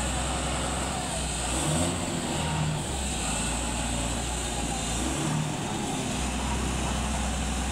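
Heavy diesel engine running steadily, a continuous low drone.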